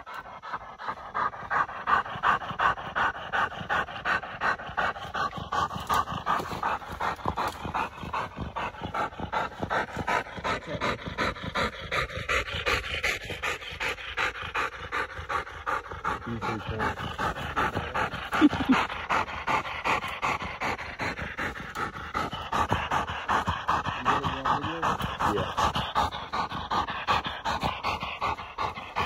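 Coonhound panting hard at close range, a rapid steady rhythm of about three breaths a second, with one brief louder sound about eighteen seconds in.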